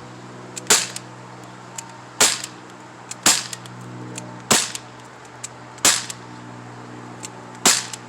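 Pellet gun fired six times in a row, one sharp crack every one to two seconds, with fainter ticks between some of the shots.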